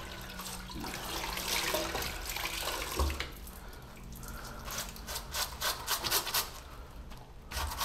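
Water running from a tap, with a soft knock about three seconds in; then quick, irregular rubbing strokes of hands working soap.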